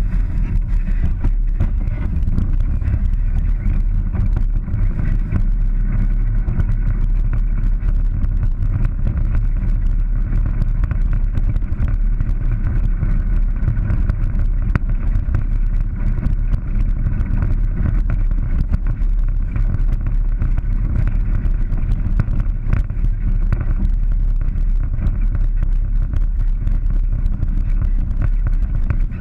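Polaris 900 side-by-side's engine running steadily as it drives along a dirt trail, picked up by a camera mounted on its hood.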